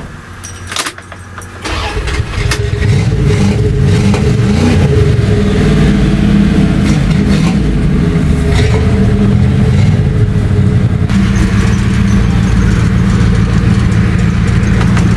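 An engine, its throttle pumped beforehand, starting after a few clicks and catching about two seconds in, then running steadily at a fast idle.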